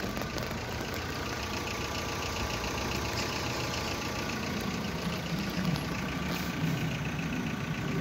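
Skoda Fabia's 1.4-litre 16-valve four-cylinder petrol engine idling steadily, with a faint rapid ticking over it.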